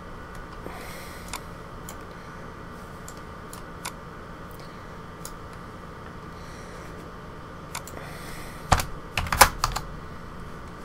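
Computer keyboard and mouse clicks: scattered single clicks, then a quick run of louder key taps near the end as values are typed in. A faint steady room hum runs underneath.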